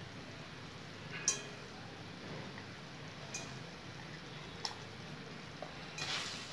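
Mustard-paste gravy simmering quietly in a wok as fried hilsa pieces are set into it one by one, with a few sharp clicks and taps, the loudest about a second in, and a short burst of sizzle near the end.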